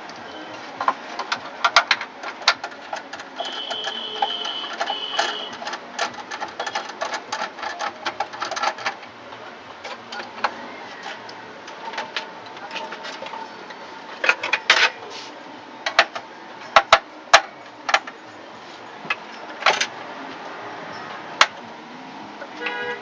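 Irregular clicks, taps and metallic knocks of a screwdriver working on a Dell OptiPlex 755 desktop, loosening the CPU heatsink. A high squeak of about two seconds comes around four seconds in.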